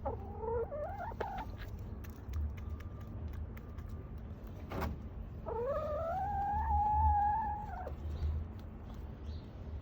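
Chicken calling: a short rising call near the start, and about halfway through one long call that rises and then holds steady, like a crow.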